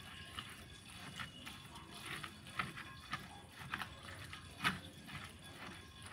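Pestle grinding and knocking in a cobek mortar, crushing a wet sambal paste of chillies and tomatoes: irregular knocks and scrapes, with one sharper knock a little over three-quarters of the way through.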